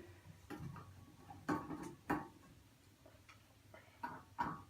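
Irregular clicks and knocks of hard parts being handled as a Quantum IDE hard drive is taken out of its drive cage in an old desktop computer, with the sharpest knocks about one and a half and two seconds in and two more near the end.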